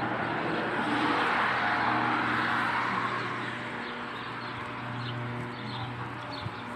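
A road vehicle passing, its noise swelling about a second or two in and then fading, over a steady low hum, with faint bird chirps.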